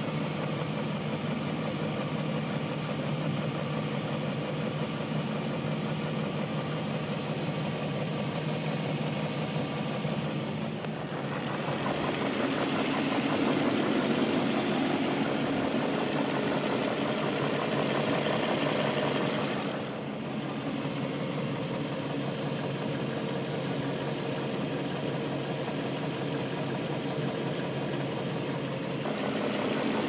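BMW M62B44TU 4.4-litre V8 idling with a freshly fitted timing-chain tensioner. The only noise left is a ticking on the left side of the engine. The sound steps up a little in level for several seconds in the middle.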